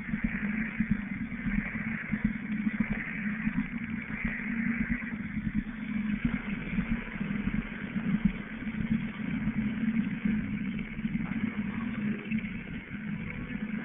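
Mobile-phone interference coming through a radio's speaker: a steady, rapidly pulsing low buzz with a hissing band higher up.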